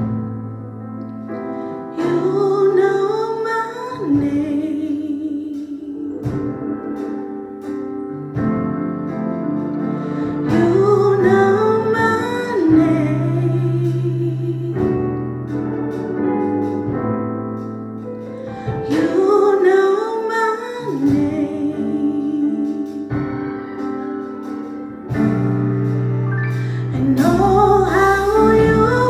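Gospel worship music: a singer's melody in phrases roughly every eight seconds, over sustained piano or keyboard chords.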